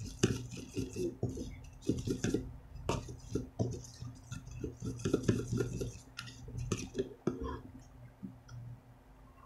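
A plastic spoon stirring and scraping white glue with slime activator in a plastic tub: quick clicks and scrapes that die down near the end. A steady electric fan hum runs underneath.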